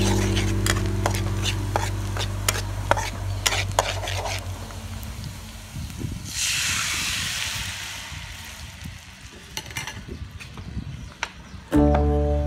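A spatula scraping and tapping in a steel wok as chopped garlic and chili fry in oil. About six seconds in, tomato liquid poured into the hot wok sets off a sudden loud sizzle that dies down over a few seconds.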